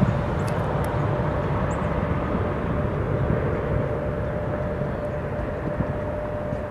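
Jet aircraft engines running: a steady rumble with a faint steady whine.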